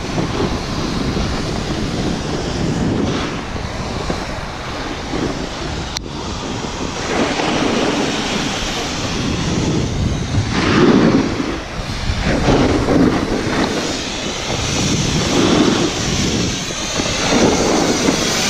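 Wind buffeting the microphone during a snowboard run, with the board's edge scraping across snow in repeated swells.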